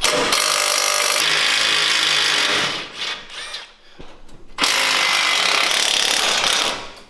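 Cordless Milwaukee impact wrench hammering, backing out the rear shock-mount bolts. It runs in two bursts of about two and a half seconds each, with a short pause between.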